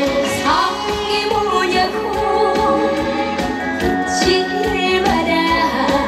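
A young female singer singing live into a handheld microphone over loud amplified music with a steady beat, heard through the stage PA.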